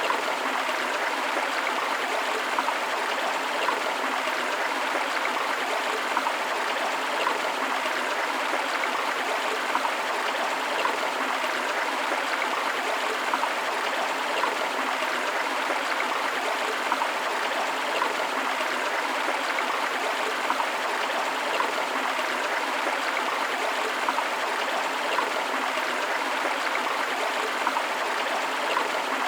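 Forest river flowing steadily, a continuous rush of water with small splashes and trickles, along with a waterfall.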